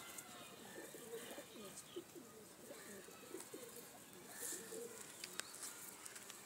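Domestic pigeons cooing, faint, low, wavering coos overlapping one another and thinning out about five seconds in, followed by a few sharp clicks.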